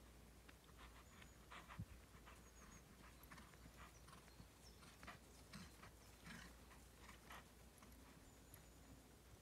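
Faint hoofbeats of a horse moving across a grass arena, a series of soft, irregularly spaced thuds, with a few thin high chirps above them.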